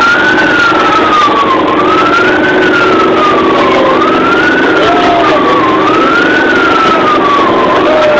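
Siren wailing, its pitch rising and falling in slow sweeps about every two seconds, heard loud from inside a bus-like vehicle over a steady hum and noise.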